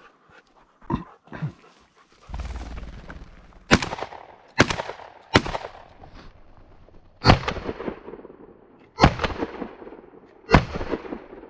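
Three shots from a 12-gauge Winchester SX4 semi-automatic shotgun fired in quick succession at a flushed red-legged partridge, after a brief rushing noise. The same three shots then sound again at about half speed, spread out and duller, as a slowed replay.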